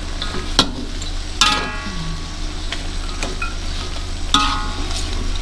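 Metal spatula stirring and scraping chicken pieces around a metal wok as they sizzle in their own released juices. It knocks against the pan several times, and two of the strikes ring briefly.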